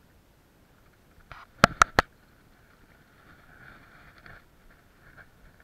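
Three sharp clicks in quick succession about two seconds in. Then a small largemouth bass, hooked right at the dock, splashes and thrashes at the water's surface for about a second and a half.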